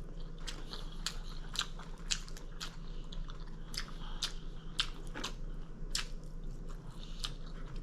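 A person chewing food close to the microphone, with irregular clicks and smacks about two or three times a second.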